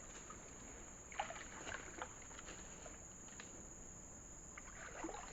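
Faint sloshing of swamp water with a few small splashes, as someone moves through the water toward a fishing net.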